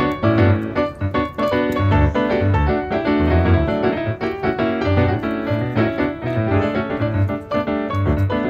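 Background music led by piano: quick notes over a pulsing bass line.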